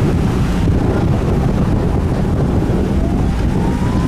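Wind buffeting the microphone in a moving open-top car, over a steady low rumble of engine and road noise.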